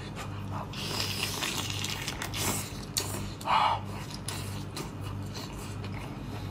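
Eating sounds from a cooked lobster being pulled apart by gloved hands and chewed: scattered clicks and short crackles of shell and meat, over a steady low electrical hum.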